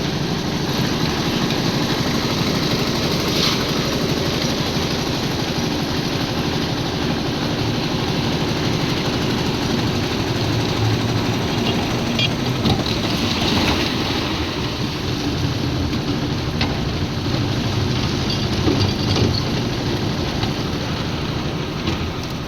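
Concrete mixer machine's engine running steadily, with a few faint knocks along the way.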